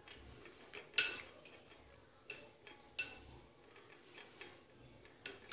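Spoon stirring chickpeas in sauce in a bowl, clinking against the bowl's side about four times with a short ringing tone.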